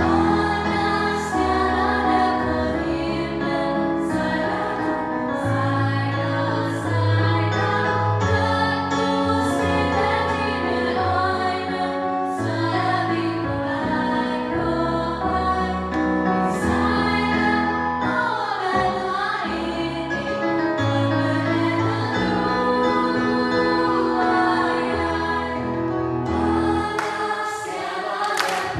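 Female choir of girls and young women singing through handheld microphones, held chords over a line of low bass notes.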